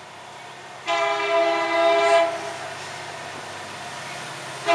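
Diesel locomotive air horn on an approaching Florida East Coast freight train, sounding a chord of several notes for a grade crossing. One long blast starts about a second in and lasts over a second. A second blast begins just as the clip ends, over a steady low rumble.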